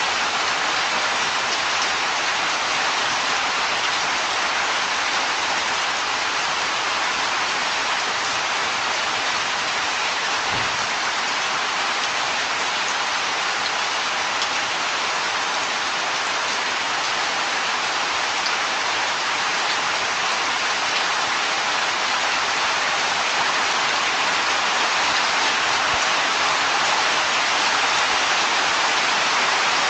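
Heavy rain falling steadily: an even, dense hiss that swells a little near the end.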